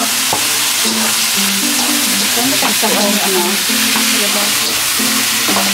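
Cubed chicken loaf and sliced mushrooms sizzling steadily in a hot metal wok while being stirred with a spatula, with a few light knocks of the utensil against the pan.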